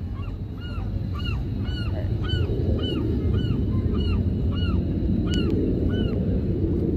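A gull calling a rapid series of about ten short, arched honking notes, roughly two a second, stopping about five seconds in. Under it, a low rumbling noise that builds from about a second in.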